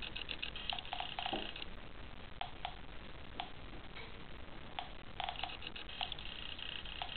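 Homemade Geiger counter clicking at irregular intervals as a radium-dial clock is held to its counter tube, each click a particle detected from the radium. A high buzzing sound comes and goes, at the start and again from about five seconds in.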